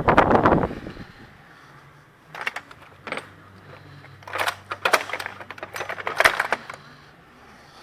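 Metal hand tools clinking and rattling in a toolbox drawer as someone rummages through them, in a loud first burst and then several short clusters of clinks. A faint low hum sits underneath through the middle.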